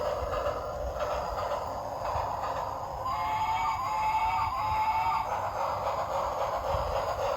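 Battery-powered toy train running with a steady whirring hiss from its motor and wheels. About three seconds in, its sound chip plays a few short pitched electronic tones for about two seconds.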